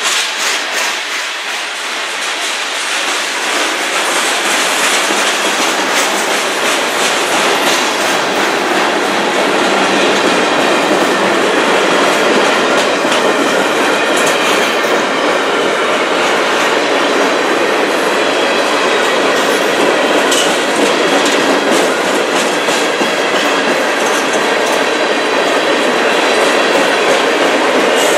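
Freight train cars rolling past at speed close by: a steady rush of wheels on rail with the clickety-clack of wheels over rail joints. It grows a little louder over the first several seconds, then holds steady.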